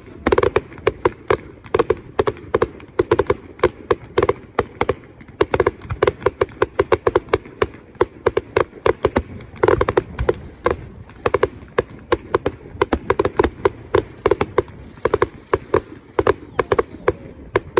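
Fireworks or firecrackers going off in a dense, irregular run of sharp bangs and cracks, several a second, without let-up.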